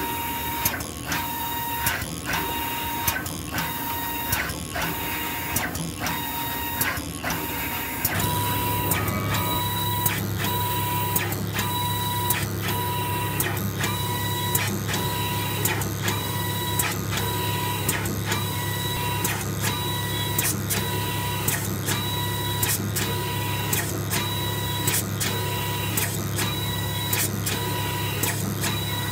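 Automated selective spray coater running as its robot moves the solder-resist spray gun. There is a regular mechanical clicking a little more than once a second, each click with a short tone. About eight seconds in, a steady low hum joins.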